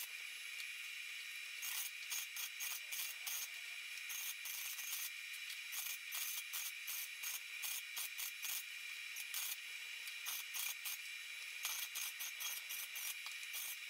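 Arc welding on the steel frame of a Honda Big Red 250 ATC: a steady crackling arc made of rapid irregular pops, broken by a few short pauses.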